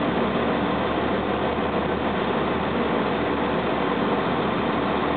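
A heavy engine idling steadily, with a low, even pulsing throb.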